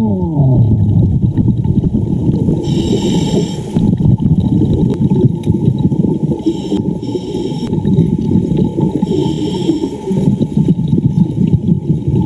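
Muffled underwater water noise, a dense low rush with gurgling bursts about every three seconds.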